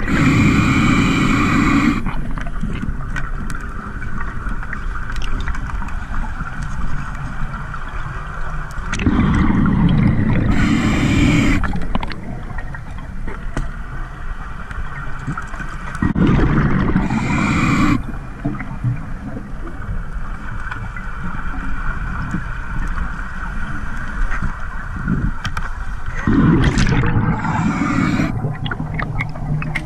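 Scuba diver breathing underwater through a regulator: four bursts of exhaled bubbles gurgling, each two to three seconds long, with a quieter steady hiss between them.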